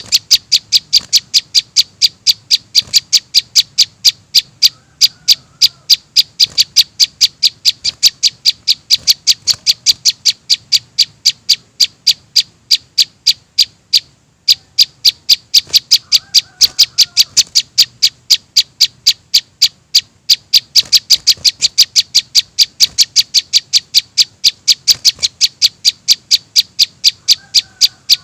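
Juvenile prenjak (prinia) begging calls played as a bird-trapping lure: a fast, even string of sharp, high chirps, about three a second, broken by two brief pauses. A fainter, lower bird call comes in a few times.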